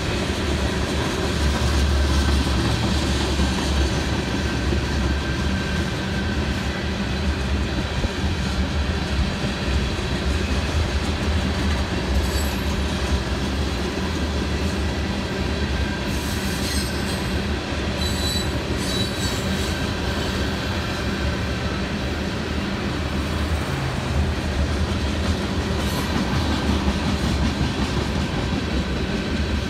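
Covered hopper cars of a freight grain train rolling past: a steady rumble and clatter of steel wheels on the rails, with thin high squealing over it.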